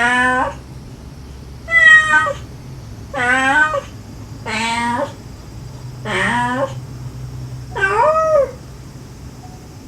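A mother cat and her kittens meowing: six separate meows, each about half a second long, about one and a half seconds apart, some rising and falling in pitch. These are the mother's gentle calls to her kittens and the kittens' soliciting meows.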